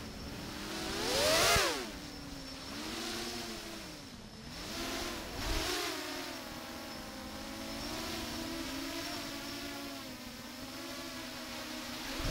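X8 octocopter cinelifter's eight brushless motors and propellers buzzing, recorded from on board, the pitch rising and falling with the throttle. A sharp climb in pitch and loudness about a second and a half in, then a steadier, wavering buzz.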